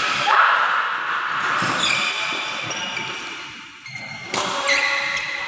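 Badminton rally on an indoor court: sports shoes squeak sharply on the court surface several times, and sharp racket-on-shuttlecock hits ring in a large echoing hall.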